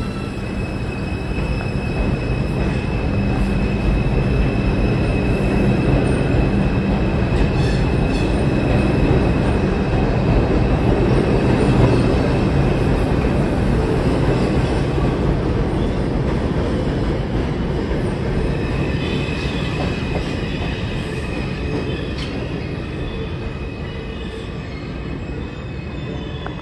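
R142 subway train pulling out of the station and running away along the track: a heavy wheel-and-rail rumble with clicks over the rail joints and steady high tones, building to its loudest about halfway and then fading. A high wheel squeal rises over it in the last third.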